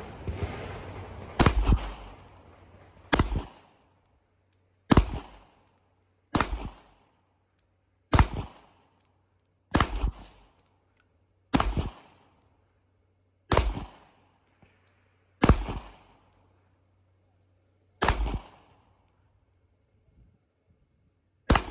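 A semi-automatic gun firing eleven single shots at a slow, aimed pace, about one every one and a half to two and a half seconds, each followed by a short echo.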